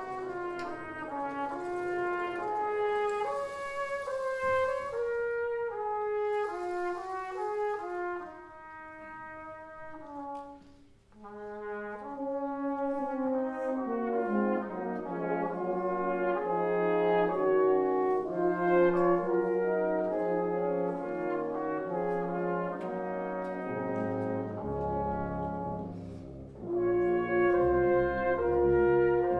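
A concert wind band playing live, brass to the fore over woodwinds in a moving melody. The music thins almost to a pause about eleven seconds in, then the full band builds back, with low bass notes joining and a loud full-band entry near the end.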